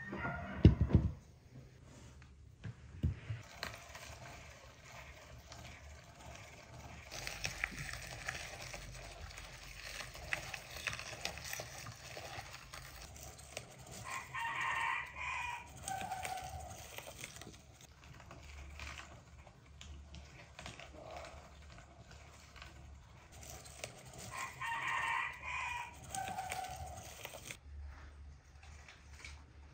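Rooster crowing twice, about ten seconds apart. A sharp thump about a second in is the loudest sound.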